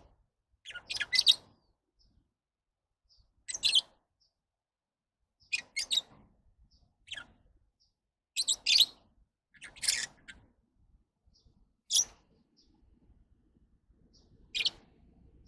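Lovebirds chirping in short bursts of rapid, high-pitched chirps, about eight in all, every second or two with quiet gaps between.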